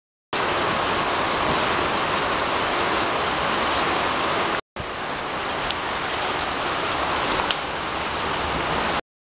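Steady hiss of heavy rain during a thunderstorm, broken by a brief cut about halfway, with two faint ticks later on.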